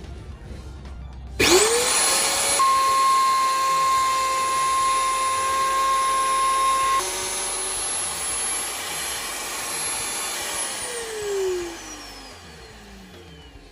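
An electric motor switched on, spinning up quickly to a steady whine over a rushing noise, then switched off and winding down with a falling pitch.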